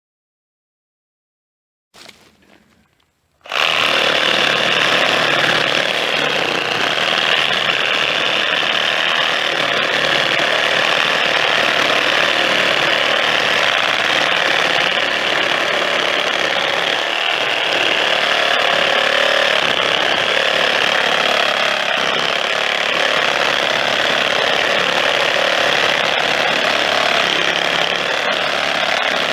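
A power saw running steadily, starting abruptly a few seconds in after a short silence.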